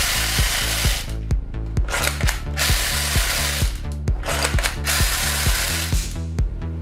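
Background music with a steady beat, overlaid by repeated bursts of a loud ratcheting, rattling toy gun mechanism, each lasting about a second or two.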